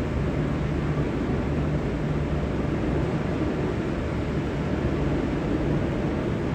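Diesel engines of a V/Line VLocity diesel multiple unit running with a steady low rumble.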